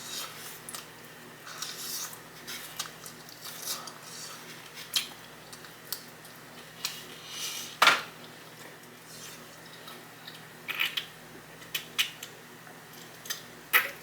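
Close-miked eating of sauced chicken wings: scattered bites, chewing and mouth smacks, with a louder sharp sound about eight seconds in.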